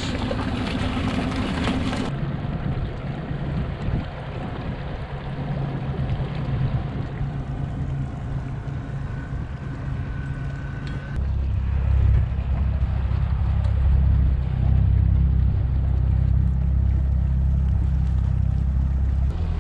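Motorboat engine running steadily, getting louder about eleven seconds in.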